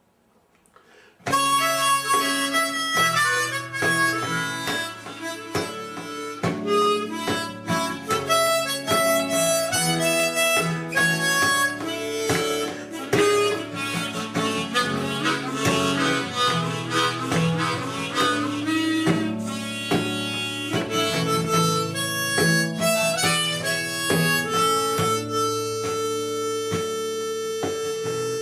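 Instrumental song intro: a harmonica playing a melody over plucked acoustic guitar, starting about a second in. Near the end the harmonica holds one long note.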